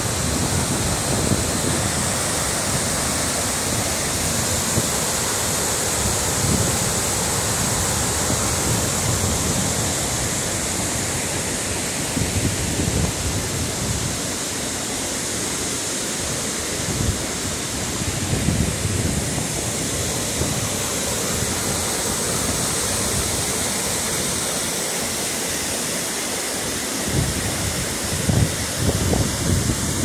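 Flooded waterfall and rapids: muddy water pouring over rock in a steady, loud rush.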